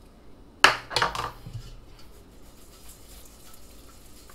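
Stainless steel colander and bowl clattering as rigatoni is tossed with grated Parmesan: a sharp clatter under a second in and a couple more just after, then soft rustling of the pasta.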